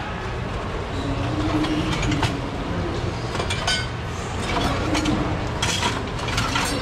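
Steady low background rumble with scattered clinks and knocks, typical of a busy market.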